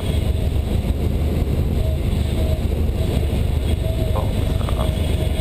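Steady low rumble of a Cessna 172 Skyhawk's piston engine and airflow, heard inside the cockpit, with a faint thin tone that comes and goes.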